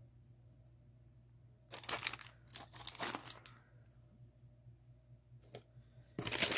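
Plastic snack wrappers crinkling as they are handled and set down in a pile, in two short bouts of rustling. A brief click follows, and a louder crinkle comes near the end.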